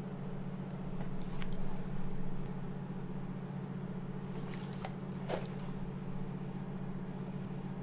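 A steady low hum with scattered light clicks and taps over it.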